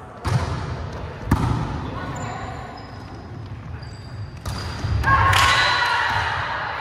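Volleyball being struck in a large, echoing gym: two sharp smacks of hands on the ball in the first second and a half, another about four and a half seconds in, and high sneaker squeaks on the wooden floor in between. From about five seconds in, players are shouting.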